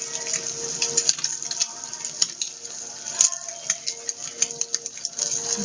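Kingfish steaks frying in butter in a pan, a steady sizzle with frequent irregular crackles and spits.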